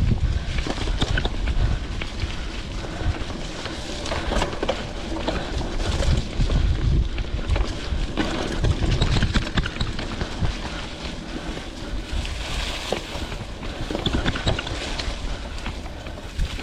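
Vintage Klein Attitude Comp mountain bike ridden on dirt singletrack: tyre rumble over the trail with frequent small clicks and rattles from the bike, and wind buffeting the chest-mounted camera's microphone.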